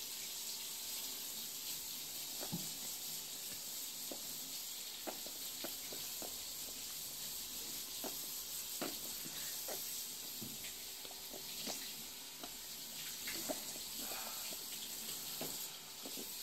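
A toddler sucking sticky nut butter off a metal spoon, with small wet lip smacks and clicks scattered about once a second over a steady hiss.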